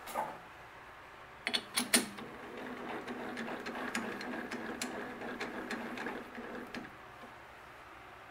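Sharp metal clicks and clinks as a steel workpiece is fitted into a lathe's three-jaw chuck, the loudest about two seconds in. This is followed by about four seconds of steady mechanical rattling with small clicks, which stops suddenly near the end.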